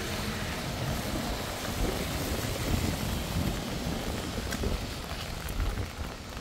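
Heavy rain falling, a steady hiss with a low rumble underneath.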